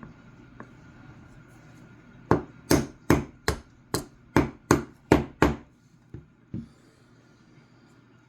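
Hammer tapping a pin punch to drive the trigger pin out of a Marlin Model 60 rifle's trigger group: about nine sharp, even taps, a little over two a second, then two lighter taps.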